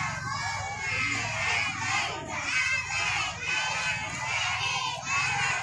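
A crowd of young children's voices, many calling and shouting at once.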